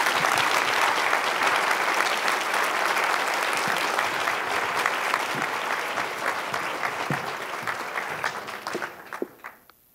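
Audience applauding, the clapping thinning to a few scattered claps and dying away near the end.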